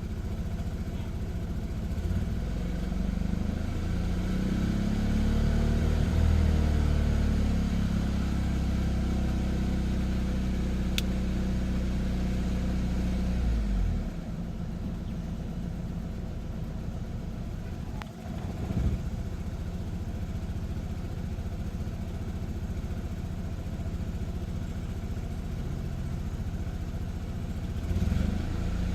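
Saab 9-3 2.0T's B207R turbocharged four-cylinder engine idling roughly, its speed wandering up and down in the first several seconds and settling lower about fourteen seconds in, with a brief dip and surge around eighteen seconds in. This is the rough idle that now shows on every start, its cause not yet found.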